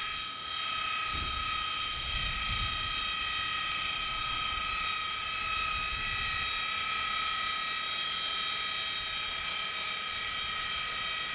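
AV-8B Harrier II's Rolls-Royce Pegasus turbofan running steadily on deck: a high-pitched turbine whine of several steady tones over a low rumble that swells during the first few seconds.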